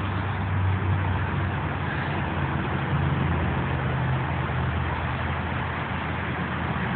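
Steady low engine hum of a running motor vehicle, with an even background hiss and no sudden sounds.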